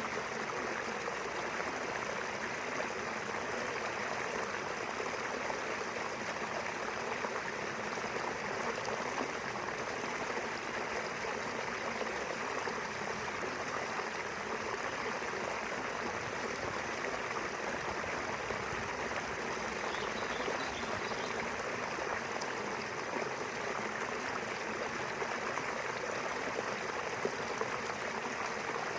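A small river flowing steadily, with continuous rushing and babbling water. A faint, brief chirp, probably a bird, about twenty seconds in.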